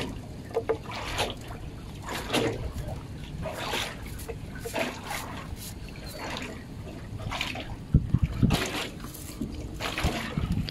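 Running water splashing and trickling as a fish trap is hauled up out of a culvert's outflow, with irregular splashes throughout and a louder cluster of splashes about eight seconds in.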